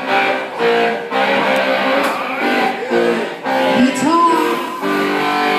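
Live band music led by a guitar strumming chords, with a few sliding notes about four seconds in.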